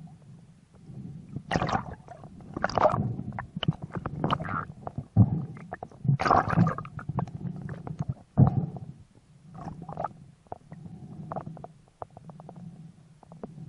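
Muffled underwater noise heard through a camera housing: irregular low rumbling with many small knocks and clicks, and a few stronger gurgling bursts, as a freediver handles his line and gear.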